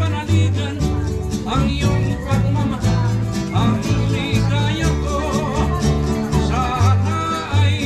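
Live band music: a bass line moving through low notes under a singing voice and plucked string accompaniment.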